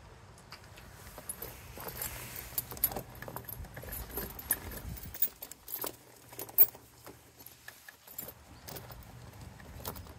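Steel V-bar ATV tire chain being pulled around and fitted onto a tire by hand. The links clink and rattle in irregular jangling clicks, with a couple of sharper clinks about three and six and a half seconds in.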